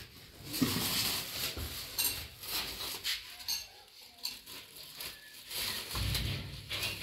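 Plastic bag rustling and small metal plumbing parts clinking as they are handled, in irregular clicks and knocks. A low rumble comes in near the end.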